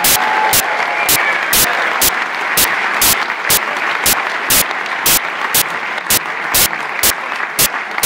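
Concert audience applauding and cheering, with loud hand claps close by in a steady beat of about two a second.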